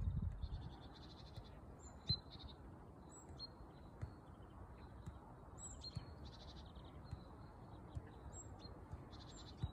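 Small birds chirping and trilling again and again, high and faint, over a low rumble of wind. A few dull thuds of a football being kicked come through, the loudest about two seconds in.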